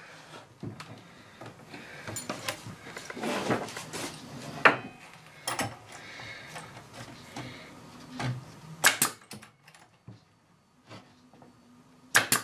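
Pneumatic brad nailer driving 1-inch brads into a wooden drawer box: three sharp shots a few seconds apart, among knocks and rustling as the wood and the nailer are handled.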